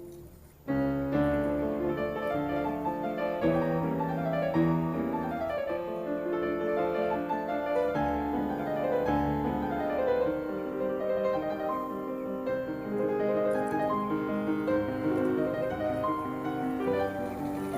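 Piano music with flowing runs of notes, coming in loud less than a second in.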